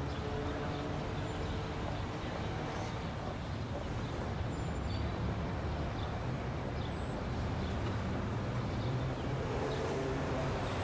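Steady low road-vehicle rumble, with a faint pitched engine drone near the start and again near the end.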